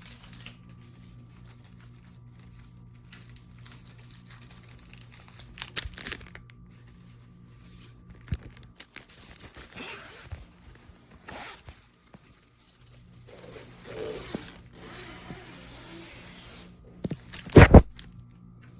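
Rustling, crinkling handling noises with scattered knocks, over a faint low steady hum that drops out for a few seconds in the middle; a loud sharp knock near the end.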